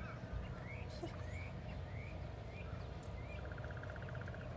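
Birds calling faintly: a run of short rising chirps about every half second, then a rapid trill of a dozen or so notes near the end, over a steady low rumble.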